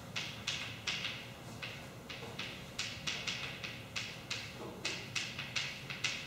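Writing on a board: a quick run of short, sharp scratching strokes, about three a second, as a formula is written out.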